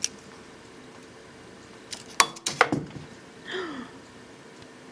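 A quick cluster of sharp clicks and taps on a glass desktop about two seconds in, from the round hairbrush and the cat's paws as the cat is brushed, then a short falling voice-like sound.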